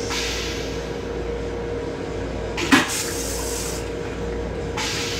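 Stainless-steel toilet in an M7 railcar restroom flushing: a hiss of rinse water spraying into the bowl, a sudden loud clunk a little past the middle followed by about a second of rushing water, then another hiss of rinse water near the end. A steady train hum runs underneath.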